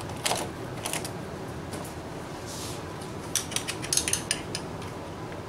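Light metallic clicks and clinks of hand tools working on the engine's intake tube fittings: single clicks early, then a quick cluster of them about three and a half to four and a half seconds in.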